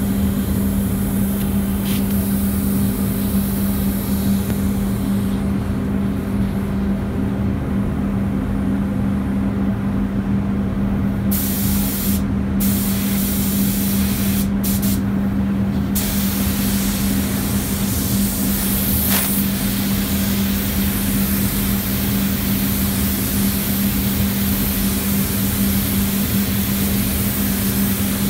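Gravity-feed air spray gun hissing as compressed air and paint blow through it: it stops for several seconds, comes back in a few short trigger bursts near the middle, then runs continuously while the painter lays paint on the panel. A steady low hum runs underneath.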